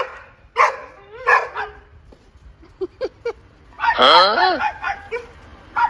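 A dog barking in short, sharp yips. About four seconds in comes a longer, louder cry that falls in pitch.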